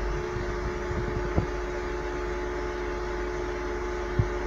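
Electric elevator traction machine running: a steady motor hum with a held tone, with two faint clicks about a second and a half in and near the end.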